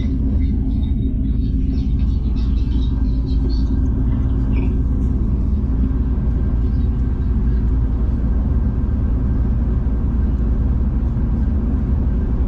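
Steady low rumble of a V/Line passenger train under way, heard from inside the carriage.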